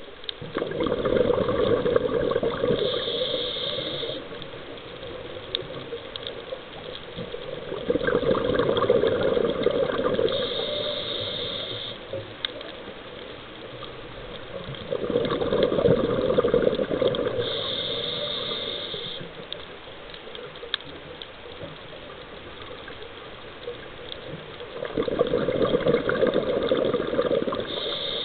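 Scuba diver breathing through a regulator underwater: four slow breaths about seven to eight seconds apart, each a few seconds of loud bubbling with a short hiss.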